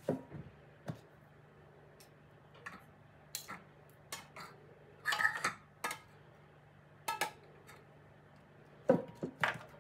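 A spoon clinking and knocking against kitchen dishes in scattered short strikes as butter is scooped out for measuring. There are small flurries of knocks about five seconds in and again near the end.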